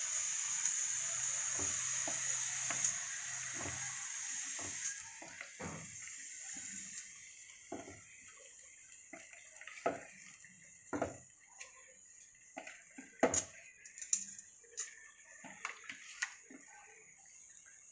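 A steady hiss for about the first five seconds, then scattered light clicks and knocks as marinated chicken pieces are set by hand onto rice in an aluminium pressure cooker, with hand and bangles tapping the pot.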